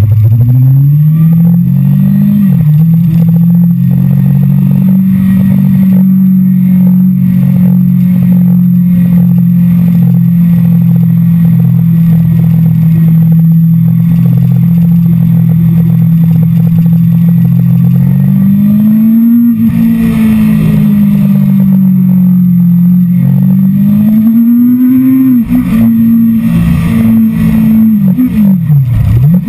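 Sport motorcycle engine heard from the rider's seat at speed: the revs climb and drop back at a gear change about two seconds in, then hold steady for a long stretch. Near the end the revs rise and fall several times with sharp drops, with wind rush underneath throughout.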